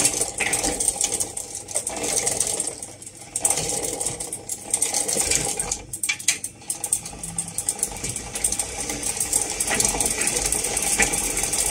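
Small motorized cat toy running: a steady, rapid mechanical rattling and clicking.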